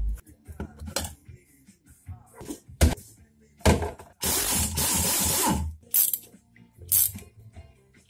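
Metal clinks and knocks as parts of a small Honda Cub-type engine are handled and set down during teardown, with a loud hiss lasting about a second and a half near the middle.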